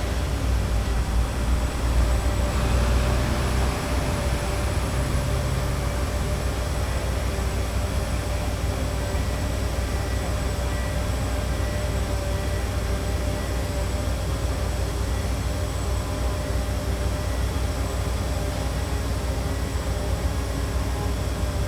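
Busy city street ambience: a steady low rumble of traffic and construction machinery with a constant droning hum, swelling for a couple of seconds about two seconds in.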